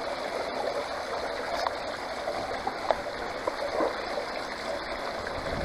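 Water running steadily down a metal sluice box, splashing and gurgling over a sawtooth mat and riffles as black sand is fed in, with a few faint ticks.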